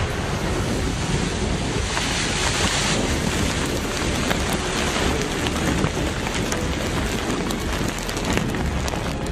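Aftermath of a mine blast: a steady roar of rushing air and dust buffeting the microphone, with scattered small ticks of falling rock and debris.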